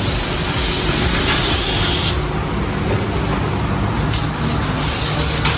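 Automatic CNC picture frame moulding cutting machine running, with a low rumble throughout. Its pneumatics release compressed air in a long hiss lasting about two seconds, then near the end in quick short hisses, about three a second.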